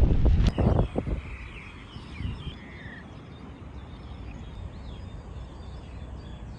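Gusts of wind buffeting the microphone, dying down about a second in, leaving a steady low background rumble with birds chirping.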